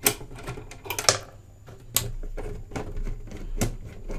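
Screwdriver and hands working at the back panel of an Astor BPJ valve radio cabinet to take it off: a series of sharp clicks and knocks.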